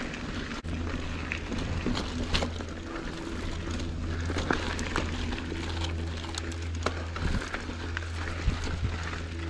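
Mountain bike descending a dirt singletrack: tyre noise on the trail with the bike rattling and many short clicks and knocks over the bumps, under a steady low hum that sets in about half a second in.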